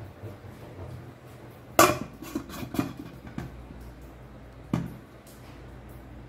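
Stainless steel lid set down on a steel mixing bowl to cover it: one sharp metal clank about two seconds in, followed by a few lighter knocks as it settles, and another knock near five seconds.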